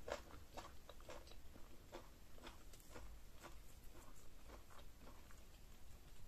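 Close-miked eating of pounded yam fufu and ogbono okra soup: faint, wet chewing and lip smacks, small mouth clicks coming a few times a second.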